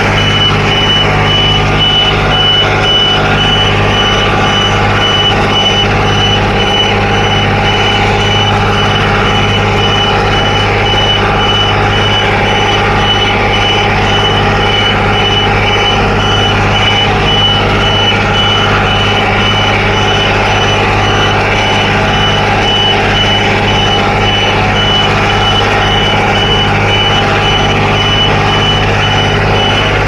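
Dongyang T553 tractor's diesel engine running steadily while pulling a moldboard plow through a wet rice paddy. The engine is not labouring, since the plow is well set. A fast, high-pitched beeping repeats over the engine.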